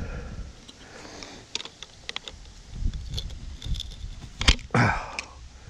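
Scattered metallic clicks, taps and scrapes of hand tools and metal parts being handled, with one sharp knock about four and a half seconds in.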